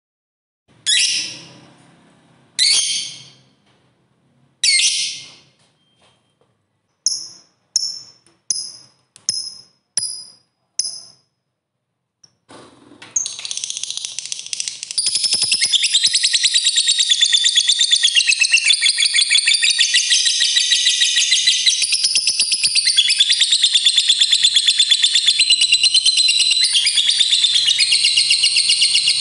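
Lovebird calling: three loud shrill screeches, then six short sharp chirps, then a long unbroken rapid chatter that goes on for over fifteen seconds. This long chatter is the 'ngekek panjang', the extended trill prized in a fighter lovebird.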